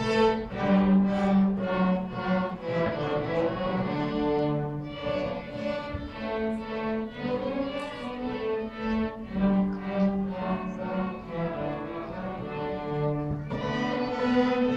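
A children's string ensemble of violins and cellos playing a tune together, with held bowed notes moving from one pitch to the next without a break.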